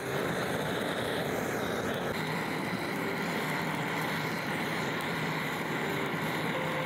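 Handheld butane gas torch running with a steady jet of flame played onto split firewood to light a fire pit.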